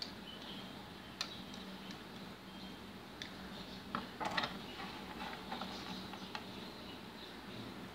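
A few light clicks of a metal spoon against a glass jar holding honey-soaked dry fruits, with the loudest cluster of taps about four seconds in as the spoon meets the plastic cutting board, then small ticks of nutshell pieces being handled.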